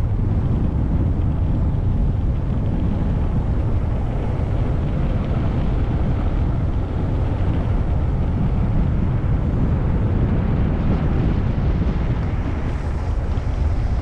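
Steady low rumble of wind buffeting the microphone on a moving vehicle, with road noise underneath.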